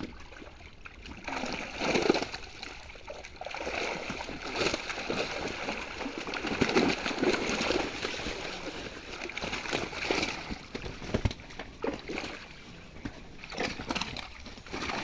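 Pond water splashing and sloshing in irregular surges as a fishing net is worked through it, with a sharp knock about eleven seconds in.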